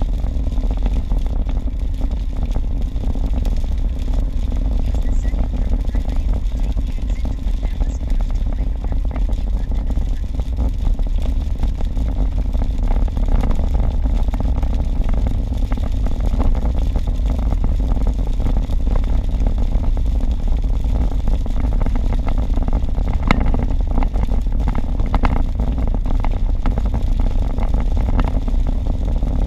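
Steady low rumble of a car driving at highway speed on a wet road, heard inside the cabin: tyre and road noise with the engine underneath.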